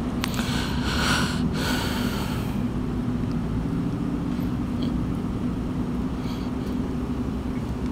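Steady low mechanical hum with a few breathy rushes close to the microphone in the first couple of seconds.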